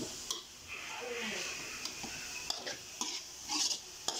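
Metal spatula scraping and tapping against a steel wok while crumbled tofu stir-fries with a steady sizzle. Several sharp strokes, the loudest near the end.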